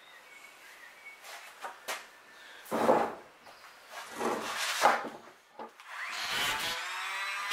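Wooden boards and timber strips knocked and slid against a long wooden mast blank, with two sharp wooden knocks. About six seconds in, an electric hand planer starts up and runs.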